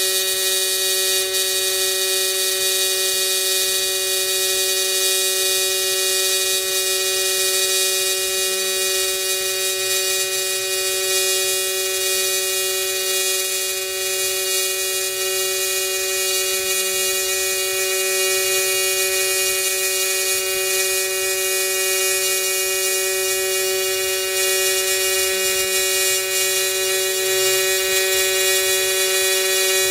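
AC TIG welding arc from an Everlast 210EXT on aluminum, set to the triangle waveform with the AC frequency turned up to 200 Hz, giving a steady high-pitched buzz like a bumblebee that holds unbroken as the bead is run.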